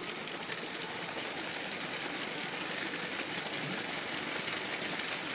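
LEGO City battery-powered train running along its plastic track: the small electric motor whirs steadily and the wheels roll over the track joints.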